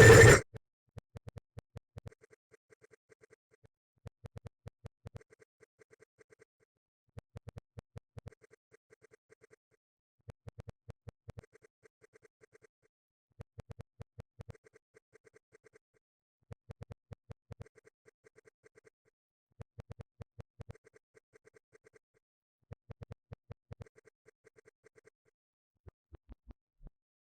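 An electronic beep sound effect, chopped into rapid stuttering pulses. It comes in short faint bursts that repeat about every three seconds, eight times in all, after a loud burst that cuts off at the very start. A few fainter clicks follow near the end.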